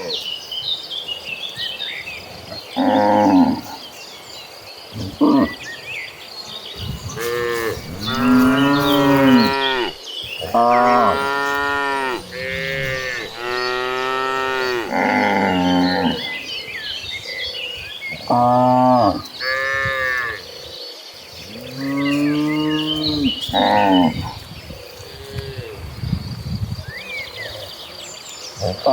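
Several cattle mooing one after another, about a dozen long calls, some overlapping, each rising and then falling in pitch.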